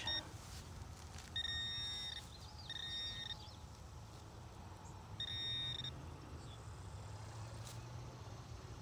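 Handheld metal-detecting pinpointer sounding three times as it is probed through a pile of dug soil: three steady high beeps, each a little over half a second long. They signal metal in the loose dirt.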